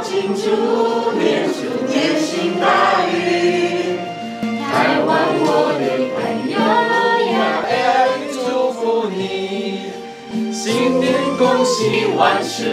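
A group of men and women singing a Chinese-language New Year song in chorus, in Mandarin and near the end in Taiwanese, with backing music.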